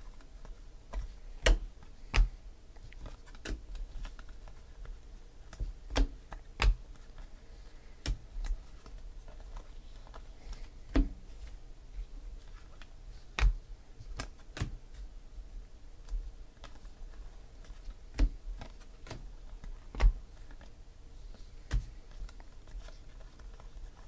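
Stiff glossy baseball trading cards handled in the hands, slid off the stack one by one and tapped square. The sound is a series of irregular sharp clicks and snaps, about one a second, some with a low thud under them.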